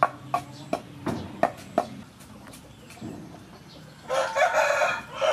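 Wooden pestle pounding chili-sauce ingredients in a wooden mortar, with sharp thuds about three a second that stop about two seconds in. About four seconds in, a loud bird call sounds for about a second.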